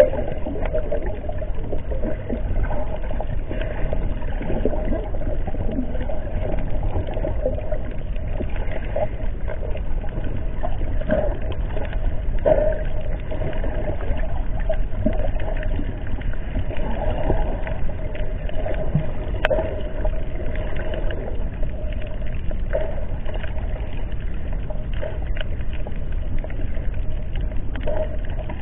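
Muffled underwater ambience: a steady low rush with a faint constant hum and scattered small clicks and crackles.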